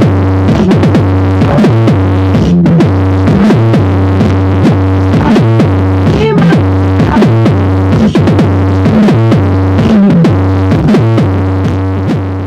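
Loud electronic music with a heavy, repeating synth bass line and a steady beat, fading near the end.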